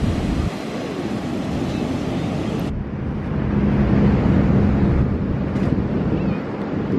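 Wind buffeting the microphone over the steady rush of ocean surf breaking on the beach; the high hiss drops away suddenly about three seconds in, leaving a duller rumble.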